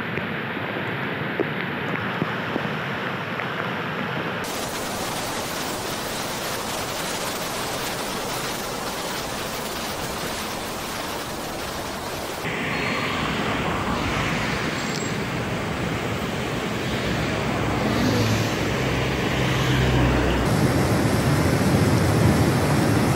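Fast floodwater rushing, a steady noisy hiss that changes at several cuts and grows louder near the end, where the torrent surges.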